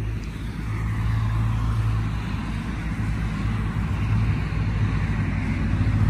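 Steady low hum and whir from running ultrasonic fog machines and traffic on a road close by. Near the end a vehicle's engine note grows louder as it approaches.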